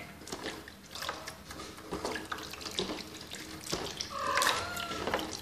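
Water splashing in a plastic basin as a kitten is washed by hand, with a kitten meowing once about four seconds in.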